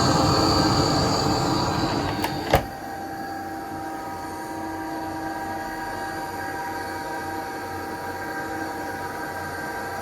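Panasonic NA-VX7900L drum washer-dryer in its drying cycle, its circulating-air fan motor making a loud, high whining squeal. The uploader takes the noise for a worn fan case unit. About two and a half seconds in there are two sharp clicks, the high squeal drops out, and a quieter, steady hum with a few mid tones is left.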